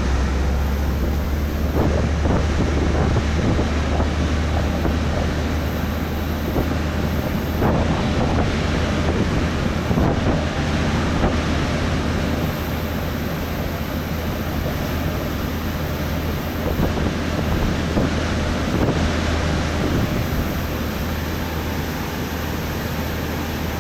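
Wind buffeting the microphone over a steady low engine drone.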